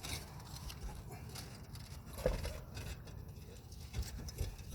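Faint scattered taps, knocks and shuffling as people move about and handle things, with a brief voice sound about two seconds in.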